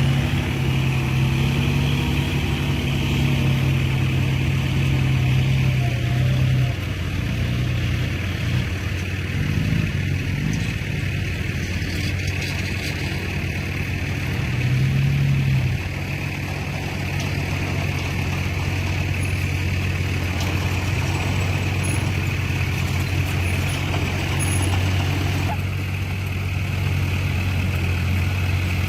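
Heavy diesel engine of earthmoving machinery running steadily. Its note drops about seven seconds in, rises briefly around fifteen seconds, then settles again.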